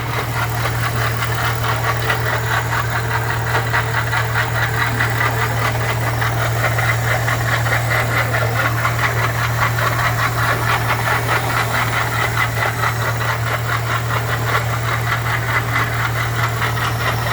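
Car engine running with a fast, even knocking rattle, which is put down to a badly damaged water pump.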